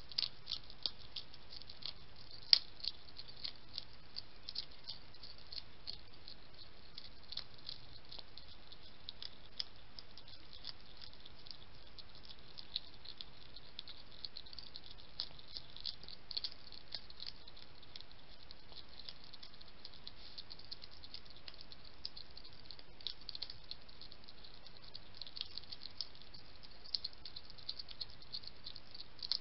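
Two European hedgehogs eating dry kibble from a plate: a steady run of small crunches and clicks, with one louder click about two and a half seconds in.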